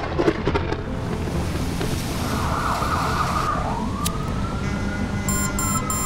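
Low city traffic rumble with a single siren wail that rises and then slowly falls away. About five seconds in, a rhythmic music beat of roughly three pulses a second comes in.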